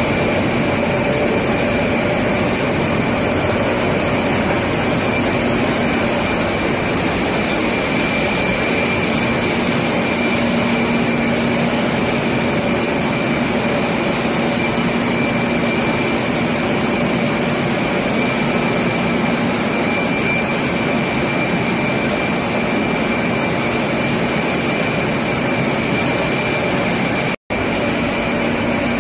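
Waldrich Siegen heavy-duty lathe running: a steady mechanical hum with a steady high whine. The sound cuts out for an instant near the end.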